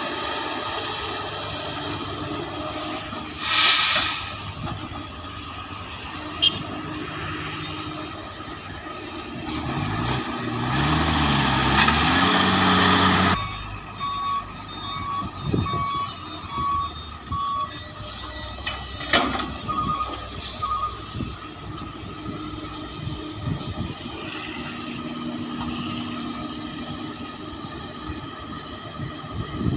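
Heavy diesel mining machinery running: an excavator and dump trucks, engines humming steadily. Midway, the engine revs rise and fall under load with a loud rushing noise for about three seconds that cuts off suddenly. Then a truck's reversing alarm beeps evenly several times, with short sharp air hisses.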